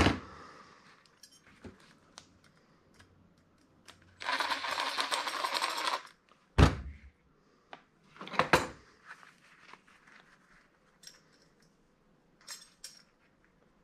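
Dismantling noises at a metal workbench: small metal clicks and clatter, a cordless drill-driver running in a two-second burst, then two heavier knocks from parts being set down.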